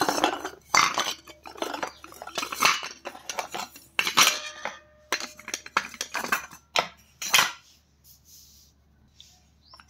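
Shards of broken clay pots clattering and clinking against each other and a stainless steel bowl as they are piled in: a quick run of sharp knocks that thins out to a few faint taps in the last two seconds.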